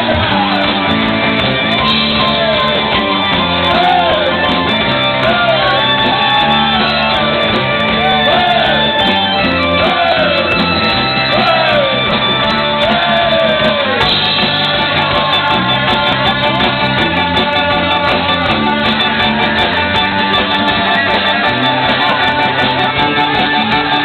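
Live rock band playing loud, with drums and electric guitar, and a singer's short rising-and-falling shouted cries over the first half; from about fourteen seconds in the band plays on without the cries.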